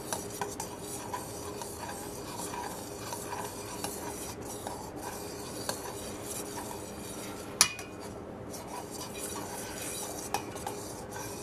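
Metal spoon stirring a thin milk and sour cream mixture in a stainless steel bowl, scraping and clinking lightly against the sides, with one sharper knock of spoon on bowl about two-thirds of the way through.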